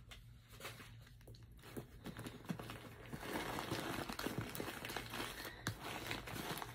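Packing paper inside a new backpack crinkling and rustling as hands pull it out. Faint at first, busier after about two and a half seconds.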